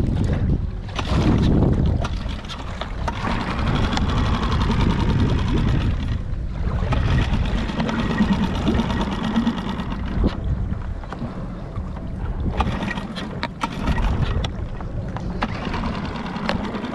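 Small Mercury outboard motor running steadily, pushing an inflatable dinghy, with wind and water noise over it.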